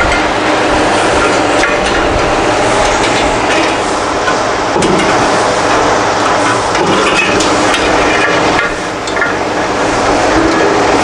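Steady loud rushing noise, with scattered light knocks and clicks of hand tools working on the bandsaw's metal parts.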